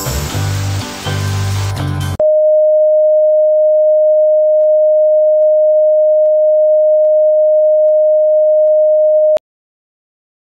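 Rock band music mixed with a hiss of TV static cuts off about two seconds in. It is replaced by a loud, steady single-pitch electronic tone like a TV test-card tone, which stops abruptly about seven seconds later.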